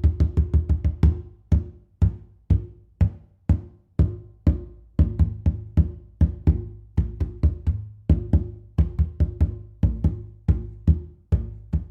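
A large conga drum played by hand in a rhythmic pattern of slaps and open tones, each hit ringing with a deep body tone. The hits slow to about two a second for a few seconds near the start, then pick up into quicker, denser patterns.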